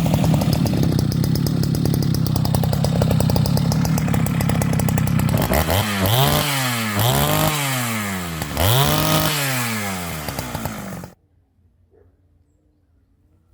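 Sachs-Dolmar 153 two-stroke chainsaw (about 100 cc) running steadily at high revs, then throttled down and blipped back up several times before it drops off and cuts out suddenly about eleven seconds in.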